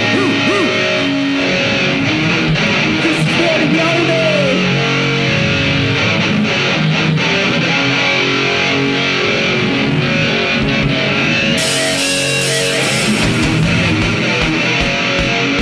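Live band playing loud, heavy music with electric guitars. A brighter, hissier top end joins in about twelve seconds in.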